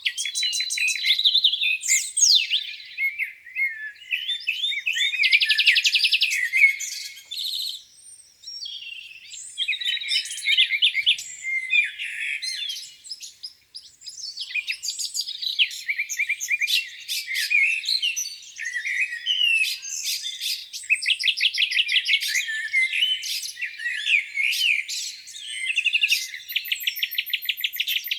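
Several songbirds singing over one another, a dawn chorus of chirps, whistled phrases and fast trills of rapidly repeated notes.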